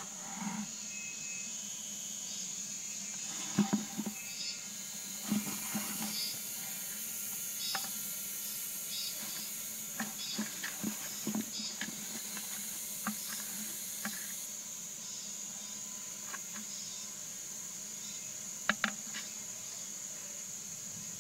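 Bamboo chopsticks tapping and scraping against a plastic basin in scattered light clicks and knocks, bunched in the first half and with a sharp double knock near the end, over a steady high hiss.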